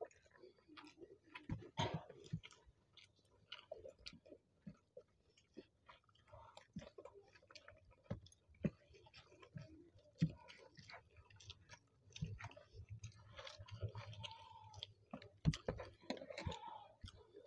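Close-miked chewing and mouth sounds of two people eating rice and fried vegetables with their hands, with many small irregular clicks and smacks.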